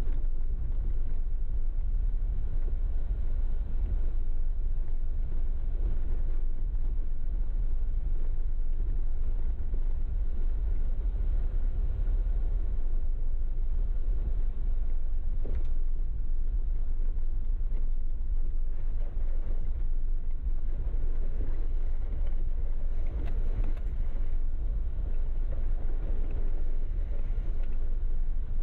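Jeep driving along an off-road trail: a steady low rumble of engine and tyres, with a single light knock about halfway through.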